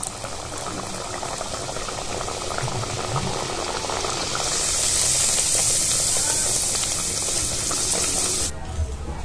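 A mug dal kachuri deep-frying in hot oil in a steel kadai: a steady sizzle with fine crackling that grows brighter and louder about halfway through, then cuts off suddenly near the end.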